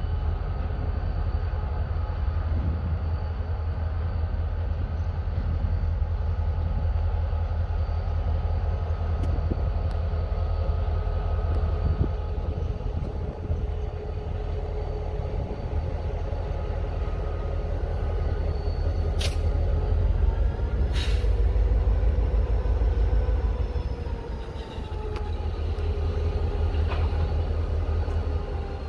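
Two Wheeling & Lake Erie diesel locomotives running slowly past, a steady heavy engine rumble with a hum of several steady tones that slide slightly lower as they go by. Two short sharp hisses or squeals cut through about two-thirds of the way in.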